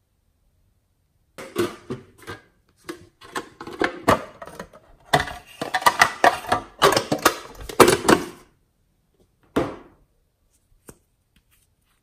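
Thin plastic blister packaging crinkling and crackling as hands bend and handle it, a dense run of crackles lasting about seven seconds, then a single sharp click.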